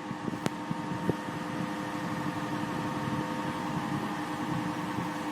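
A steady mechanical hum holding several fixed tones, with two light clicks in the first second or so.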